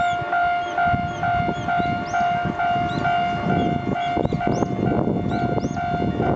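Japanese railway level-crossing warning bell of the electronic type, made to imitate the old gong bell. It repeats a single steady ding about twice a second.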